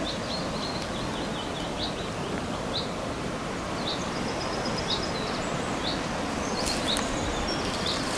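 Small birds chirping and twittering in short, scattered notes, with a few brief trills, over a steady hiss of outdoor background noise.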